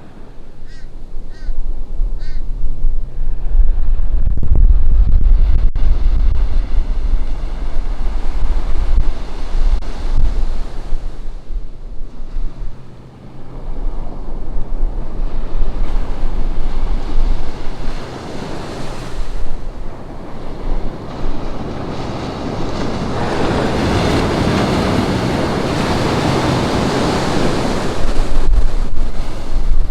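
Ocean surf breaking and washing up the beach, with wind buffeting the microphone in a low rumble. The wash swells to its loudest in the last third as a wave comes in.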